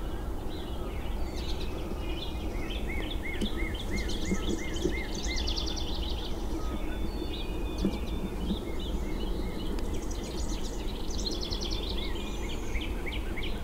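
Several songbirds chirping and singing over a steady low background noise. One bird repeats the same short note about three times a second for a few seconds, starting about two and a half seconds in.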